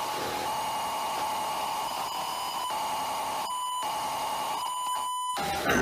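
Electronic synth-pop intro: a steady hiss of noise with high held tones running under it. It thins out briefly twice in the second half, and a falling sweep comes just before it cuts off.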